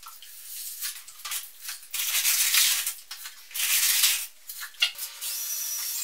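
Water poured from a watering can onto dry perlite and fire cement in a bucket, heard as several gritty, rushing spells. About five seconds in, a cordless drill with a paddle mixer starts up and whirs steadily, stirring the wet mix.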